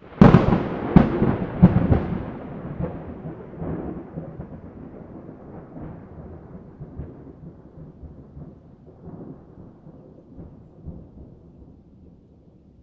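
A thunderclap: a sudden sharp crack, two more cracks within the first two seconds, then a long rumble that slowly fades away.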